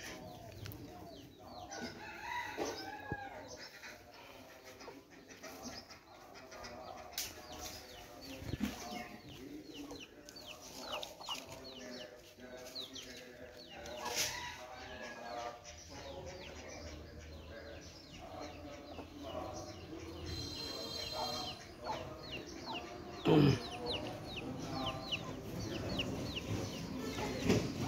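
Chickens clucking with a rooster crowing, over many short, high bird chirps. One brief louder sound stands out about four-fifths of the way through.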